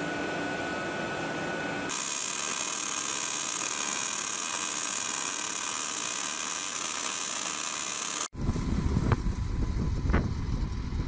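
Steady industrial machinery hum in a steel fabrication hall, switching abruptly after about two seconds to a louder, steady high-pitched hiss. Near the end it gives way to wind rumbling on the microphone outdoors, with a few sharp clicks.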